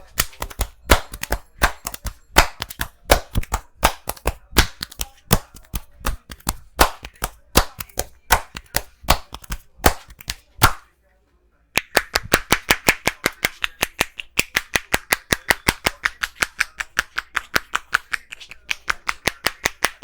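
A barber's hands slapping and tapping on the head during a head massage: irregular sharp slaps at first, then, after a brief silent break about halfway, a fast, even run of hollow, clap-like tapping strokes about six a second.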